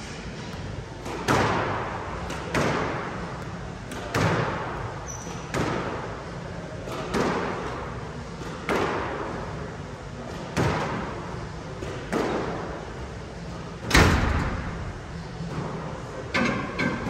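Squash rally: the ball smacking off racquets and the court walls about every one and a half seconds, each hit echoing around the court. The loudest hit comes about 14 seconds in, and two quicker hits follow near the end.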